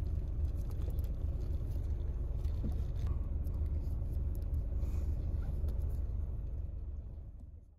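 Bus engine idling, a steady low rumble heard from inside the passenger cabin, fading out near the end.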